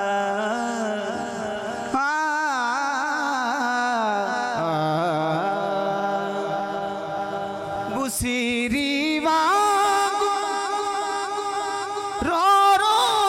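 A man singing a devotional Punjabi poem through a microphone, drawing out long, wavering notes in phrases that break and start again a few times.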